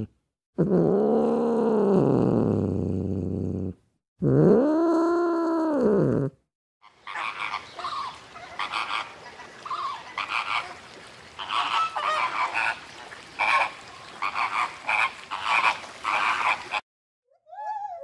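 Two long calls from a clouded leopard, each rising then falling in pitch. Then a flock of flamingos honking in many short calls, and near the end the first rising and falling calls of a gibbon.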